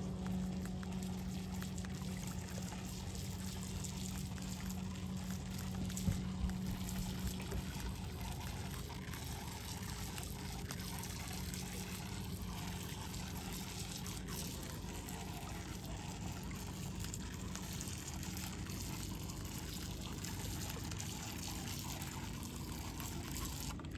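Small waves lapping and trickling over the rocks of a shallow lake shore, with a steady low hum for about the first eight seconds that then fades away.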